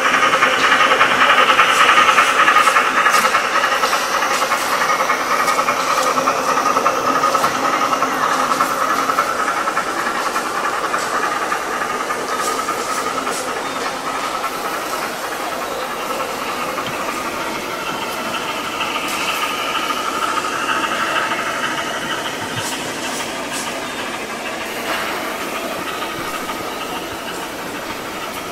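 N gauge model steam locomotive and goods wagons running on the layout's track: a steady rushing whirr with light rattling and scattered clicks, loudest at first and slowly fading as the train draws away.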